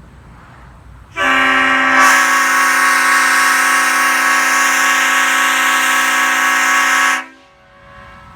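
A Leslie five-chime air horn with bronze tabby power chambers sounding one long chord of about six seconds, starting a second in and cutting off cleanly.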